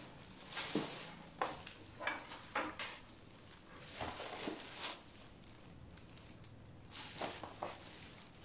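Clear plastic wrap crinkling and a PC case being handled, in several short bursts of rustling with light knocks.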